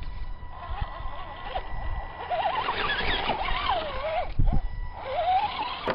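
Electric motor of a radio-controlled rock crawler whining, its pitch rising and falling in several stretches as the throttle is worked over the rocks, with a few low knocks.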